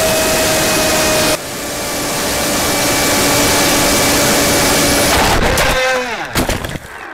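Onboard sound of a Theory Type W FPV racing wing in fast flight: a loud rush of wind over the camera with the electric motor and propeller whining at a steady pitch, the level dropping abruptly at an edit about a second and a half in. Near the end the motor whine falls sharply in pitch and a run of knocks follows as the wing strikes and tumbles on the beach sand.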